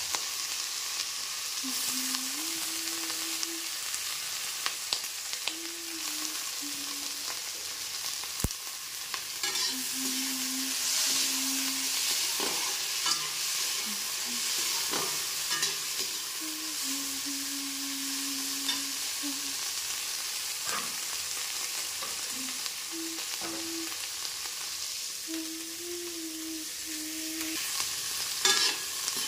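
Green capsicum (bell pepper) strips sizzling in hot oil in a metal wok, stirred with a slotted spatula that scrapes and knocks against the pan now and then, most sharply near the end.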